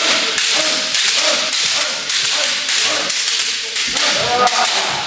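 Kendo sparring: bamboo shinai cracking against each other and against armour in rapid, overlapping strikes, mixed with loud shouted kiai cries from several players.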